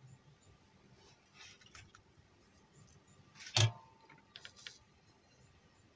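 Bench handling noises: a faint rustle, then one sharp click with a short low thump about three and a half seconds in, followed by a few lighter clicks.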